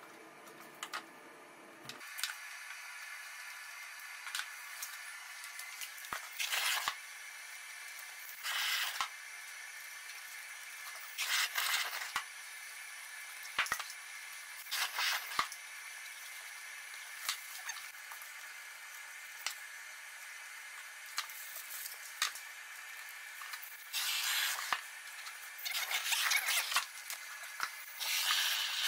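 Repeated short rustling and crinkling noises as gloved hands lay a self-adhesive waterproofing corner patch and press it into place, over a faint steady hiss.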